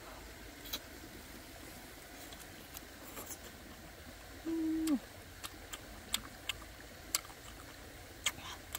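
Close mouth sounds of someone eating a piece of chicken: scattered sharp lip smacks and chewing clicks. About halfway through, a short hummed "mm" that drops in pitch at the end is the loudest sound.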